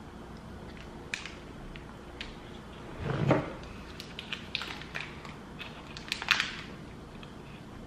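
Chewing a sweet and salty peanut snack bar, with the plastic wrapper crinkling in the hands. Scattered small crackles throughout, louder about three seconds in and again about six seconds in.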